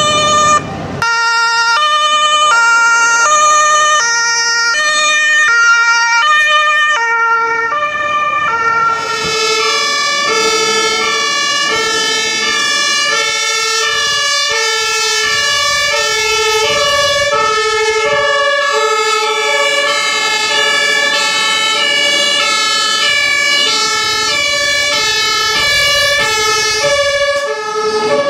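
German two-tone emergency-vehicle sirens (the alternating 'tatütata' horn) of an ambulance and a fire engine driving past. One siren alternates alone at first. About eight seconds in a second two-tone siren joins, and the two then sound together out of step.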